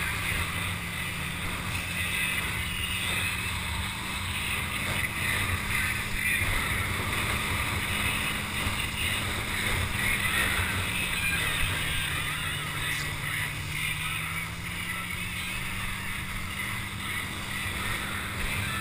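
Water rushing and spraying under a towed water ski, with wind buffeting the microphone, over the steady hum of the tow boat's engine, which dips lower in pitch for a few seconds about two-thirds of the way through.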